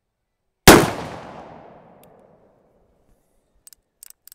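A single shot from a Pietta 1860 .44 calibre snub-nose black-powder percussion revolver, loaded with a mild 25-grain charge and a round ball, with its report ringing off for a second or so. A few faint clicks follow near the end.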